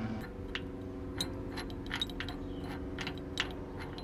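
Light metallic clinks from a steel wrench and latch hardware on a distribution transformer's steel tank: about a dozen irregular clicks as nuts and cover latches are worked loose.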